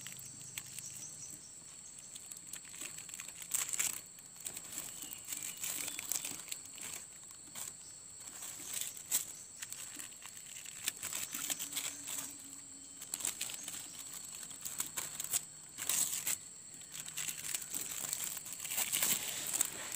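Thin plastic strip crinkling and rustling in irregular crackles as it is wrapped and tied around a seedling's graft joint.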